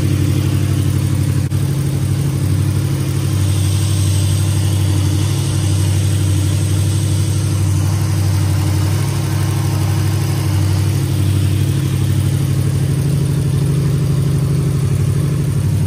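Freshly rebuilt Oldsmobile 403 V8, just started and warming up on an engine stand, running steadily through a temporary exhaust with mufflers.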